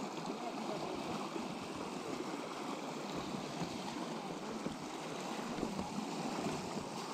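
River current rushing steadily: fast, powerful flowing water.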